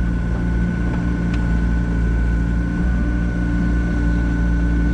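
The engine of a digging machine running steadily at a constant speed, with a thin steady high whine over its low hum.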